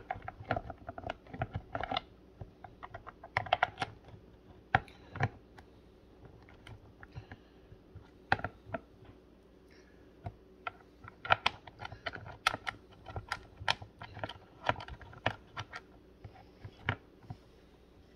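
Irregular sharp clicks and light knocks of gaming-chair parts being handled and fitted by hand during assembly.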